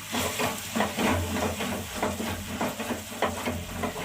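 Macaroni and cheese sauce being stirred in a hot pan, with irregular scraping, bubbling and sizzling as the butter and parsley are mixed in.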